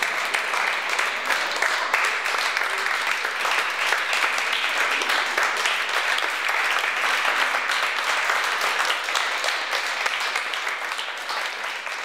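Audience applauding steadily, beginning to fade out near the end.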